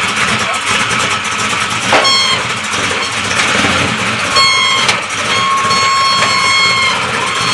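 Chevrolet El Camino's engine running as the car drives slowly down the trailer ramps, with two sharp knocks about two and five seconds in.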